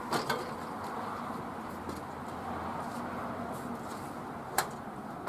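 Aluminum dock frame being lowered onto sawhorses and set in place: two knocks right at the start and one sharp knock about four and a half seconds in, over steady background noise.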